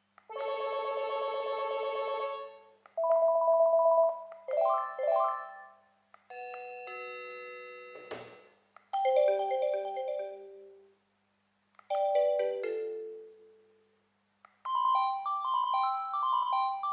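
Panasonic KX-TGH710 cordless phone playing its ringtones one after another. Each lasts a second or two before the next starts: a fast electronic trill, short beeping note patterns and a chime, then a repeating melody near the end. There is a click about eight seconds in.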